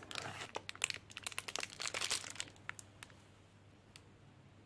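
Packaging being handled and crinkled while a keyboard's accessory box is unpacked: a quick run of sharp crackles and clicks for about three seconds, then it goes quiet.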